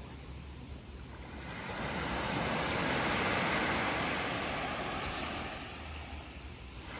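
Small sea waves breaking and washing up a sandy shore. The hiss of the surf swells about two seconds in and dies away near the end, over a low steady rumble.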